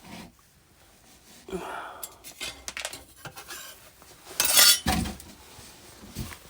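Metal parts of a dryer being handled: scattered light clinks and knocks, then a brief loud rattle about four and a half seconds in, followed by a dull thump.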